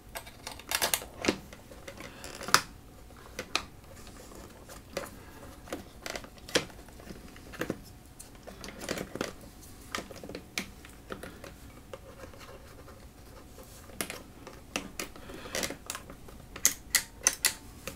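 Scattered clicks, taps and short scrapes of a pedalboard's power cable and barrel connector being handled and pushed into place, with a quick run of clicks near the end.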